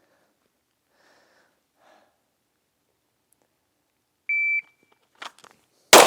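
PACT Club III shot timer's start beep, one short steady high tone about four seconds in, followed by a few faint clicks and then a single loud handgun shot near the end.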